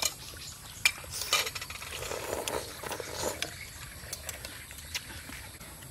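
Metal spoons clinking and scraping against ceramic plates as people eat soup. There are a few sharp clinks, the loudest about a second in, then lighter taps and scrapes.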